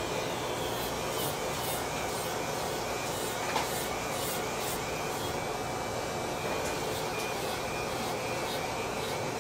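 Electric nail file (e-file) running steadily with a coarse sanding-cap bit, buffing down calloused skin on the sole of a foot.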